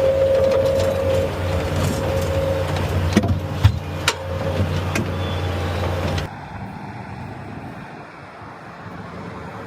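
Excavator's diesel engine running steadily with a held whine, with three sharp metallic clanks a little past the middle; the sound drops away suddenly about six seconds in, leaving a quieter, even background.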